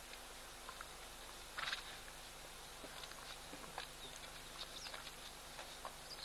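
Elephant herd drinking at a waterhole: faint splashes and water sloshing from trunks, with a brief louder splash about one and a half seconds in, over a steady outdoor hiss.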